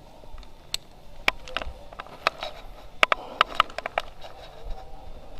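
Airsoft guns firing: a string of sharp, irregular pops, with a quick run of shots about three seconds in.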